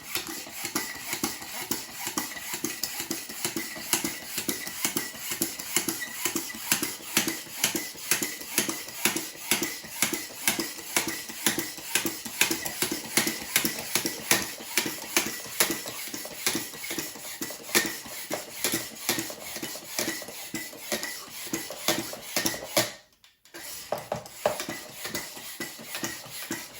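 Hand bicycle pump worked steadily at about two strokes a second, each stroke a short rattling click, inflating an inner tube to find where it is punctured. The pumping stops briefly near the end.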